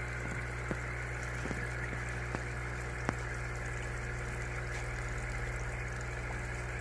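Steady low hum of aquarium filter equipment running, with a faint water hiss and a few soft ticks in the first few seconds.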